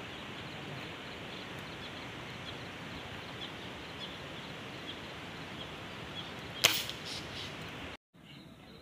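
A single sharp air-rifle shot about two-thirds of the way in, followed by a couple of softer knocks. Under it runs a steady outdoor hiss with faint high chirps repeating every half second or so, and near the end it drops suddenly to quieter room tone.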